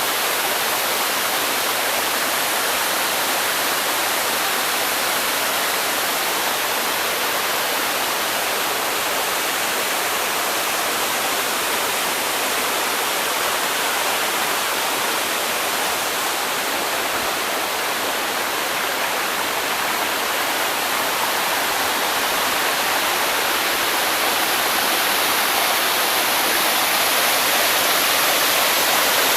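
Waterfall: a steady, unbroken rush of falling water, hiss-like and full in the upper range with little deep rumble.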